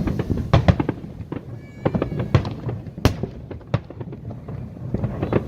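Aerial fireworks bursting in a rapid, irregular series of sharp bangs, with a brief high whistling tone about two seconds in.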